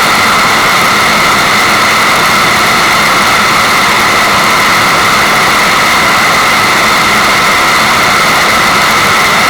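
Steady rushing water, a loud even hiss that runs on without a break or change.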